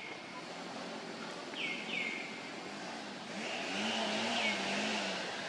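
A motor vehicle engine passing, its pitch wavering as it swells to loudest near the end. Several short bird chirps, each falling in pitch and ending on a brief held note, sound over it.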